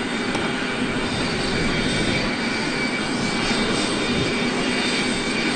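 Aircraft turbine running steadily on the ramp: a constant whine with several held tones over a rumble.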